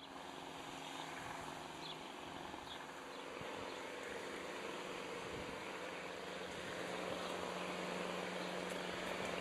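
Steady outdoor background noise: an even, wind-like hiss with a faint low hum under it, and a few faint high chirps about two seconds in.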